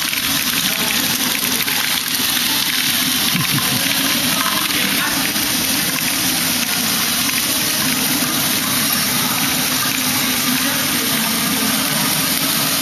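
LEGO Great Ball Contraption modules running together: many small plastic balls rolling and tumbling through Technic lifts and conveyors driven by small electric motors, blending into a steady rushing clatter.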